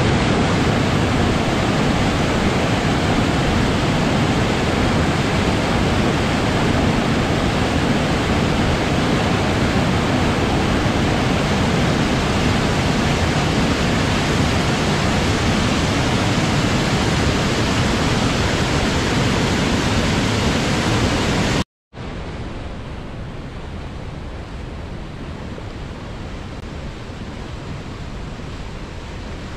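Steady, loud rush of water. It cuts out suddenly about 21 seconds in and comes back a moment later, quieter.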